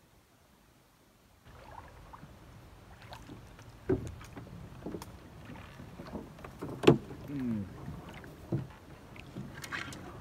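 Canoe being paddled through flooded timber: wooden knocks of the paddle and hull, with branches brushing and scraping along the boat. The sounds start about a second and a half in, and the sharpest knock comes about seven seconds in, followed by a brief falling creak.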